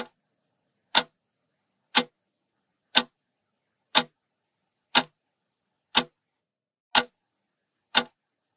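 Clock-tick sound effect marking a countdown timer: nine sharp, even ticks, one per second, with silence between them.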